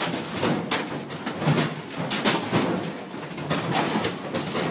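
Office fittings rattling and clattering as a strong earthquake shakes the building: irregular knocks and rattles, several a second.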